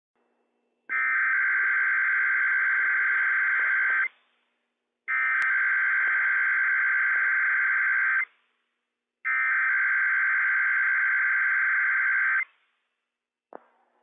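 NOAA Weather Radio Emergency Alert System SAME header: three identical bursts of shrill, buzzing digital data tones, each about three seconds long with a second's gap between, encoding the Required Weekly Test alert and its list of counties. A brief click comes near the end.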